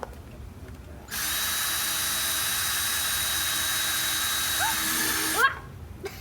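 Electric drill running steadily for about four seconds, boring into a plastic bucket with a newly fitted bit, then stopping suddenly.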